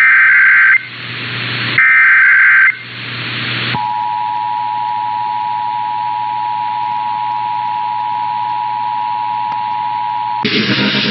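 Emergency Alert System test broadcast: two harsh, screeching digital header bursts about a second long each, then the two-tone EAS attention signal, a steady dual tone held for about seven seconds over a hiss, cutting off as the voice message begins near the end.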